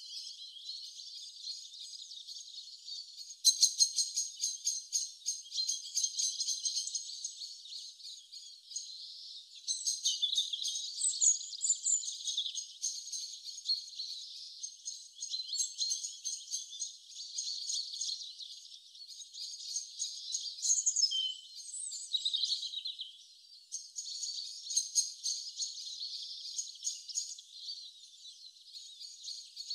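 Small birds chirping and trilling in rapid runs of short high notes, with a few gliding calls.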